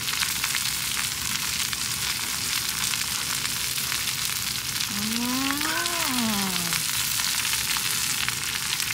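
Beef intestines (gopchang) and other offal cuts sizzling steadily on a lightweight camp griddle. About five seconds in, a person's single hummed note rises and then falls.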